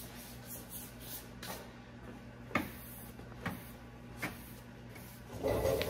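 Sandpaper on a hand sanding block rasping across a primed steel body panel in separate light strokes, about one a second and unevenly spaced, with a longer, louder stroke near the end. A steady low hum runs underneath.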